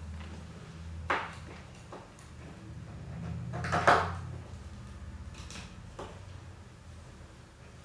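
Plastic marble-run track parts being handled and fitted together by hand: a few scattered clicks and knocks, the loudest just before four seconds in, over a low steady hum.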